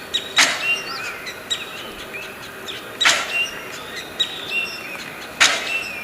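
Small birds chirping and whistling throughout. Three loud, harsh rasping calls come about two and a half seconds apart.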